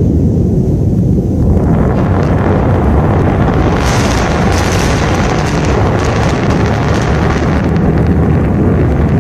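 Deep, continuous rumble from the returning Falcon Heavy side boosters, heard in the wake of their double sonic booms as they come down to land. A harsher roar builds in on top of it about a second and a half in and is strongest from about four to seven seconds.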